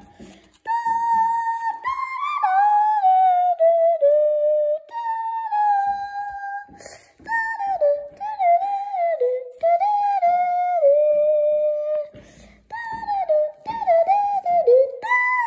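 A high-pitched voice singing a wordless tune, with held notes that slide up and down in short phrases and brief pauses between them.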